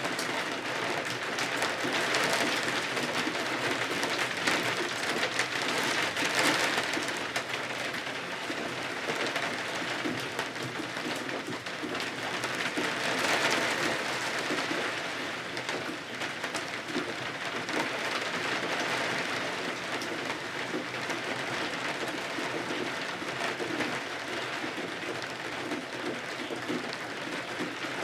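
Steady rain with individual drops ticking against a surface, swelling louder twice: a few seconds in and again about halfway through.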